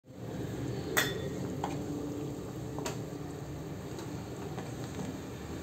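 Wooden spoon stirring a thick curry in a clay pot and knocking against the pot's side three times, the loudest knock about a second in, over a steady low background.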